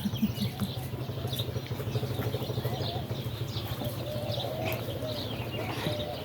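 Small birds chirping, over a steady low hum.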